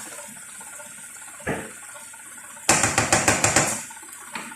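A loud burst of rushing, rattling kitchen noise lasting about a second, about three seconds in, with a faint knock a little earlier.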